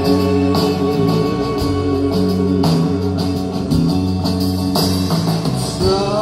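Live rock band music: a slow passage of guitar over held bass notes, with a sung line coming in near the end.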